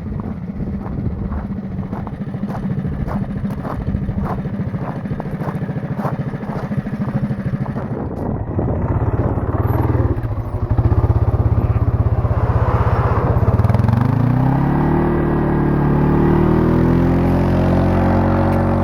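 Quad's small engine running at part throttle, uneven and breaking up a little, which the owner puts down to it still running a little rich. About fourteen seconds in, its pitch rises as it speeds up, then holds a higher, steady note.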